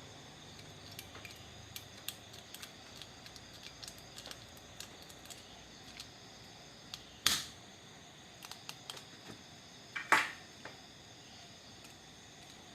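Spring-loaded desoldering pump being worked while an amplifier IC is removed from a circuit board: scattered small clicks and taps of tools, and two loud, sharp snaps of the pump's plunger releasing, about seven and ten seconds in.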